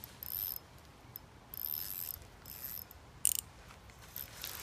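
Fishing reel clicking in several short spells as a hooked carp is played in.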